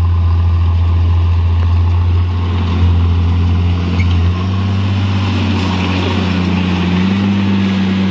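Heavy truck engine running steadily with a low drone, its pitch stepping up slightly near the end.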